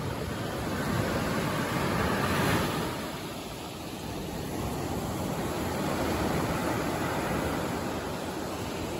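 Sea surf washing onto a sandy beach: a steady rush that swells twice.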